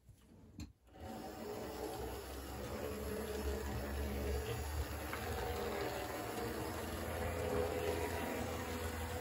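Triang OO-scale Class 37 model diesel locomotive running round the track with two coaches: a steady running noise from its electric motor, drive and wheels on the rails, starting about a second in. It is still not a quiet runner, with an odd drive system.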